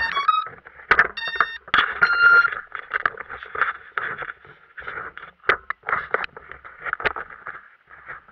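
Muffled knocking, scraping and rustling picked up through the onboard action camera's waterproof case as a crashed racing quadcopter tumbles and is then handled. Three short electronic beeps sound in the first two and a half seconds.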